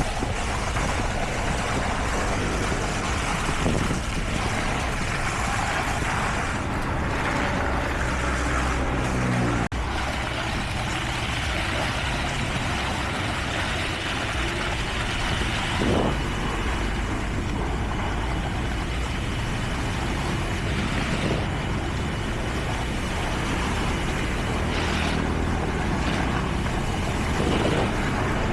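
Heavy construction machinery engines running steadily, with a sudden break about ten seconds in and a few brief knocks.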